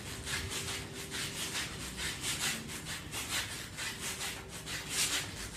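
Fast mountain climbers on an exercise mat: rhythmic rasping of quick, hard breaths and sneakers scuffing the mat, in an even beat of about four strokes a second.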